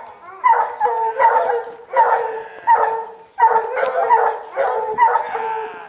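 Hunting hounds barking in a quick, steady string, nearly two barks a second, baying a cougar they have treed.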